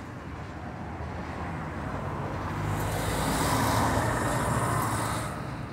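A motor vehicle passing close by: engine hum and road noise swell to a peak about halfway through, then fade away.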